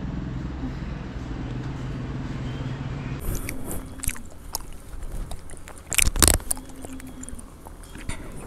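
A steady engine hum for about three seconds, then it stops and gives way to handling noise: scrapes, rustles and scattered knocks, the loudest a pair of knocks about six seconds in.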